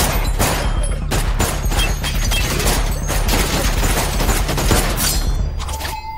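Several handguns fire in a rapid, ragged volley of many shots over a steady low rumble. The shooting thins out near the end, where a thin steady tone comes in.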